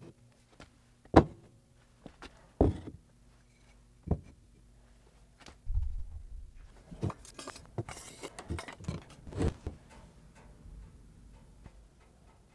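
Bamboo-covered sword being set down and handled on a wooden workbench: four sharp knocks spaced about a second and a half apart, then a run of lighter taps and rustling.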